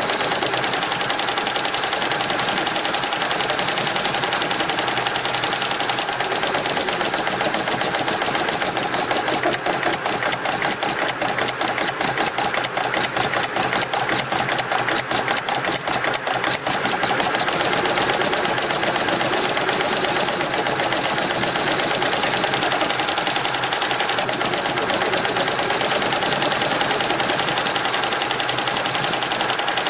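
Richpeace computerised embroidery machine stitching sequins at speed: a rapid, steady clatter of needle strokes over a constant machine tone.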